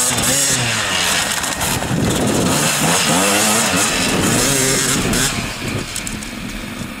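Two-stroke enduro dirt bike engines revving hard, their pitch rising and falling over and over with throttle and gear changes. They get somewhat quieter after about five seconds.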